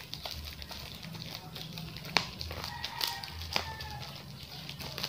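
A rooster crowing faintly, one drawn-out call about three seconds in. Scattered light clicks and taps from the cardboard box and packaging being handled sound around it.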